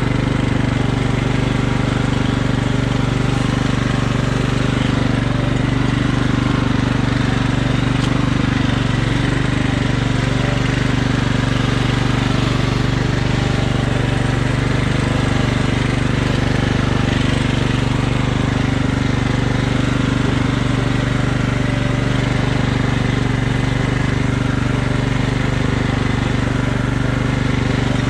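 Riding lawn mower engine running at a steady, unchanging speed.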